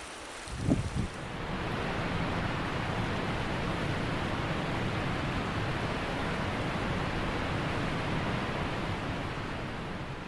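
A brief low thump about a second in, then a steady, even rushing noise like water or surf that begins to fade near the end.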